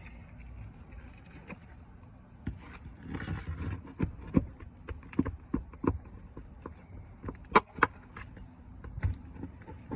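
A metal tool working nails out of roof shingles: a run of sharp, irregular knocks and taps with a short scrape, the loudest two knocks close together near the end. The nails were driven in at an angle, which makes them hard to get out.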